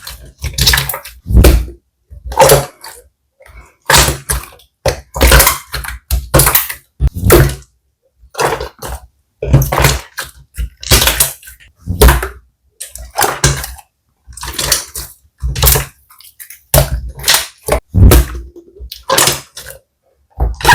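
Slime being squeezed and pressed by hand close to the microphone, making short wet squishing and crackling sounds, about one or two a second, with silent gaps between them.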